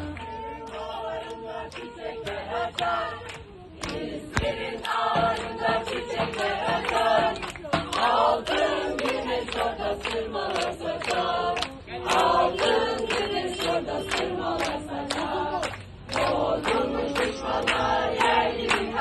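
A crowd of people singing together in chorus, with sharp hits keeping a quick beat. It thins out briefly about four seconds in and again about sixteen seconds in.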